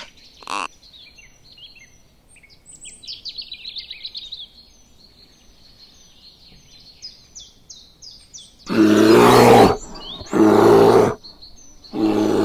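Small birds chirping with a quick trill, then three loud, rough growls from a brown bear: two of about a second each, starting around nine seconds in, and a shorter one near the end.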